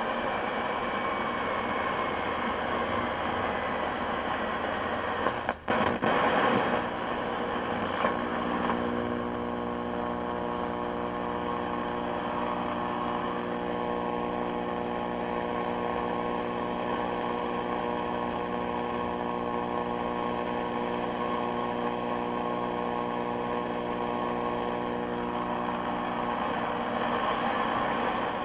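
Harsh static and buzz from a 1966 Sylvania tube color TV's speaker, hissy at first with a brief crackle about five seconds in, then settling into a steady buzz over the hiss. It is the sound of the set being overloaded with the AGC turned up too high.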